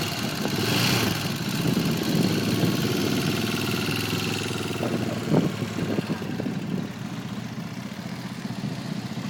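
ATV engine running at low throttle as the quad is driven slowly, with a few brief blips in pitch about five seconds in; it grows quieter about seven seconds in.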